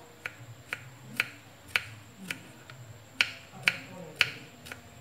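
Kitchen knife slicing through a firm ingredient onto a wooden cutting board: about ten sharp chops, roughly two a second, the loudest in the second half.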